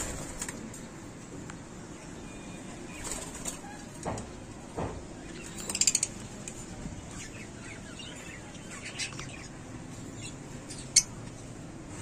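Caged white lovebirds fluttering their wings and giving a few short, high chirps, with a quick run of sharp calls about six seconds in and one sharp chirp near the end.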